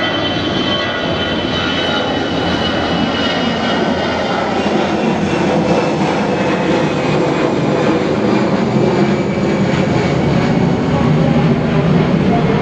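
Twin jet engines of an Airbus A321 airliner running at taxi power: a steady rush with a faint high whine, the low rumble growing a little louder in the second half.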